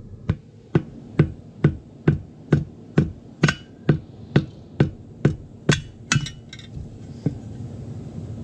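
A hammer striking in a steady rhythm, about two blows a second, while a tire bead is worked off a steel wheel with screwdrivers; a couple of the blows ring like metal. The blows stop about seven seconds in.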